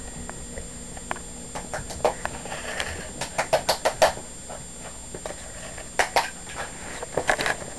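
Small dog yapping in play: short, sharp yaps in bursts, with a quick run of about five a few seconds in and a few more near the end.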